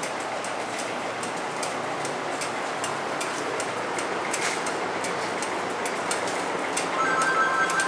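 Gen 4 all-aluminum 5.3 LS V8, fitted with 706 heads and a stage 1 cam, idling steadily on the dyno, with light irregular ticking over the running noise.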